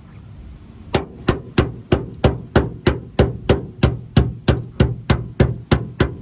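A hammer beating on the sheet-metal body of a 1977 Camaro, knocking a damaged panel into place. The steady, even blows start about a second in and come about three a second, each with a short metallic ring.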